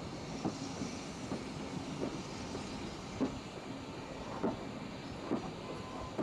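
A pannier tank steam locomotive, No. 7715, working a three-coach train with its exhaust beating slowly, about one chuff a second, over a continuous rumble of the moving train.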